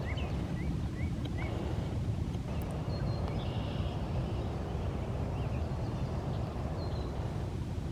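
Small birds chirping: a quick run of short rising chirps in the first second and a half, then a few scattered higher notes, over a steady low rumble.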